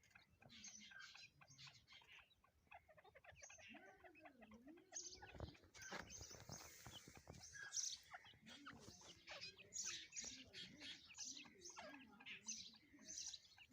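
Faint bird chirping: many short, high calls following one another, with a low clucking call about four to five seconds in.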